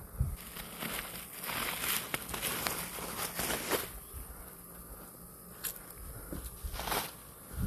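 Light footsteps and rustling, with scattered faint clicks.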